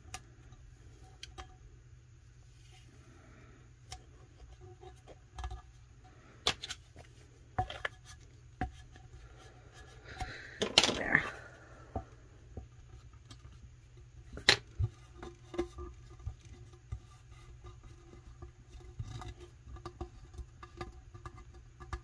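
Scattered light taps, clicks and rustles of hands handling a tumbler and a vinyl decal, with a plastic squeegee scraping over the vinyl about ten seconds in, the loudest sound. A low steady hum runs underneath.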